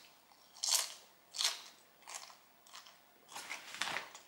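Close-up crunchy chewing of Doritos tortilla chips with a mouthful of macaroni salad, a crisp crunch about every two-thirds of a second, the last one longer.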